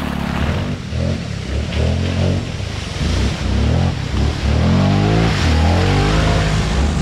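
Segway Snarler 570 ATV engine revving hard under load in deep mud, its pitch rising and falling several times as the throttle is worked, with the splash and spray of mud and water from the spinning tyres.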